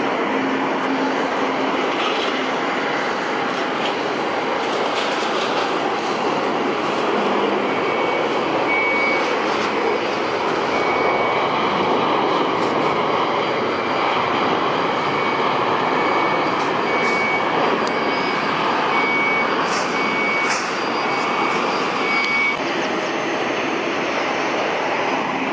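Steady jet noise from the Rolls-Royce Trent XWB engines of a Japan Airlines Airbus A350-900 landing and rolling out. From about eight seconds in, a high beep repeats roughly once a second for some fifteen seconds.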